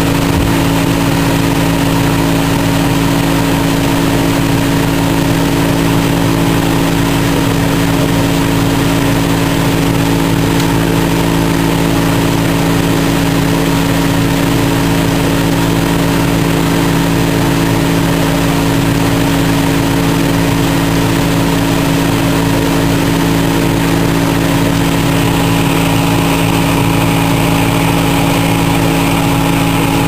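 Small 12-volt, 12-watt DC fan running steadily in a homemade ice-bottle air cooler, a steady motor hum with a few held tones over the rush of air blowing out through a PVC elbow outlet.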